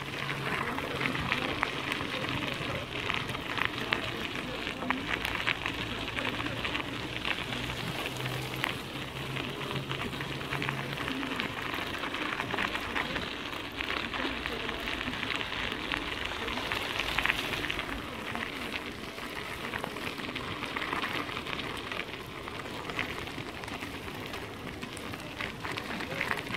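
Bicycle tyres rolling over a gravel towpath, giving a steady gritty crackle. A faint low hum fades out about halfway through.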